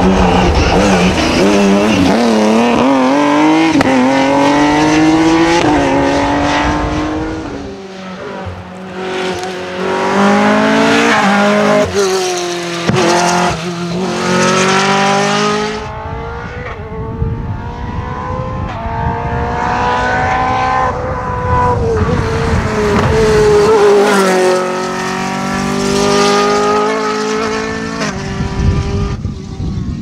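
Rally cars driven hard along a tarmac stage, their engines revving up through the gears, the pitch climbing and dropping back at each shift. There are a few sharp cracks about halfway through.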